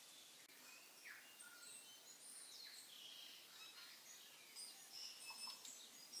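Faint bird chirps: many short, high whistled notes and sliding calls scattered throughout, busiest near the end, over a quiet steady hiss.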